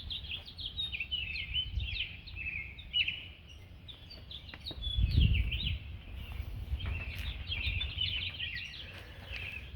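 Small birds chirping and twittering continuously, many short high chirps, over a low rumble that swells about five seconds in.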